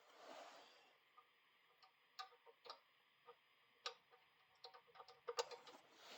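Faint, scattered light clicks and taps with a brief rustle near the start: a brake cable and its housing being handled and fed through a routing point on a mini bike.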